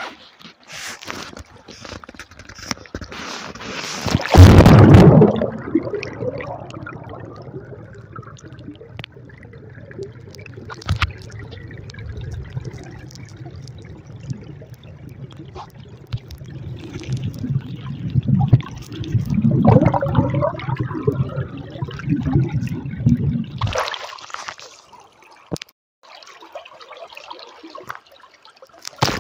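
River water gurgling and sloshing, heard muffled through a waterproof phone case that is held in a shallow, fast-flowing stream. A loud rush comes about four seconds in, and a heavier low churning runs from about eighteen to twenty-four seconds in, then cuts off suddenly.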